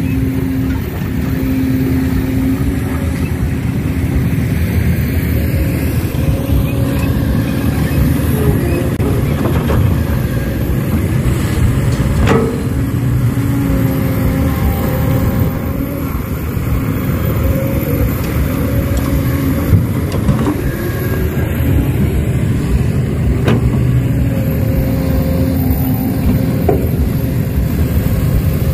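Heavy diesel engines of an excavator and dump truck running, their pitch rising and falling as they work, with a few sharp knocks.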